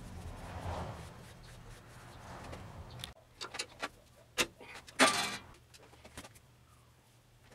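Wood lathe running with a steady low hum as it spins a wooden bowl. It cuts off suddenly, followed by a few sharp clicks and knocks of handling at the chuck and one louder, harsh half-second scrape.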